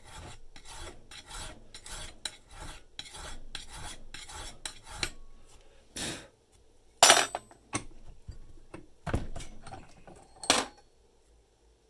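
Hand file rasping across a metal key blank clamped in a vise, in quick back-and-forth strokes of about three a second. It stops about five seconds in, followed by a few separate knocks and clatters, the loudest about seven seconds in.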